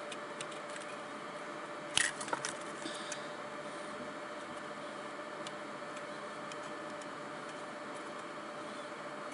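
A sharp snip about two seconds in, followed by a few smaller clicks, as bandage scissors cut through thin styrene sheet, over a steady faint hum of room noise.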